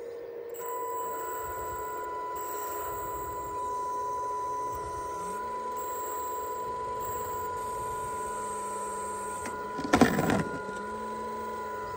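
Hydraulic pump and electric motor of a 1/8-scale RC hydraulic excavator whining steadily with a high tone; a lower hum joins in while the boom and arm are working. Near the end comes a brief loud crunch as the bucket bites into the rocky soil.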